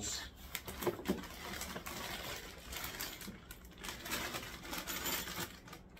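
Plastic wrapping crinkling and rustling as a bagged package is handled and lifted out of a cardboard box, with small ticks and crackles, dying down near the end.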